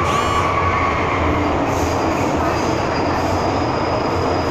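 An MTR M-Train (Metro-Cammell electric multiple unit) running, heard from inside the passenger car: a steady rumble of wheels on rail with a thin high whine. A brief squeal comes right at the start.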